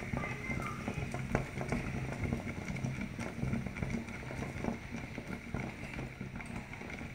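Thin maize-flour porridge for nsima boiling hard in a lidded pot, with irregular bubbling pops and quick ticks throughout, over a steady low hum.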